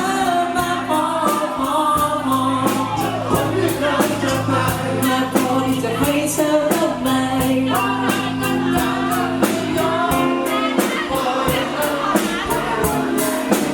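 Live pop band playing while a crowd sings the chorus together over a steady beat and bass line. The bass drops out about ten seconds in.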